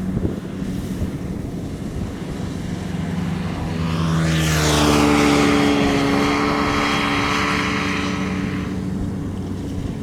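Kubota DC-70 combine harvester's diesel engine running steadily, then swelling louder and higher in pitch about four seconds in and easing back near the end, as the machine works through a waterlogged rice field.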